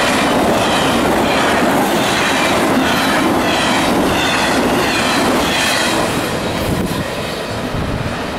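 Double-stack intermodal freight cars of a fast CSX train rushing past, their steel wheels clattering on the rails. The sound eases off about two-thirds of the way through as the last car goes by and the train pulls away.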